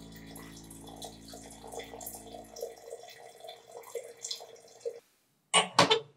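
Brewed tea pouring from a glass jug into a ceramic teapot, an uneven trickle and splash that stops about five seconds in. Then a few sharp, loud clinks of a ceramic mug against a metal hook rail.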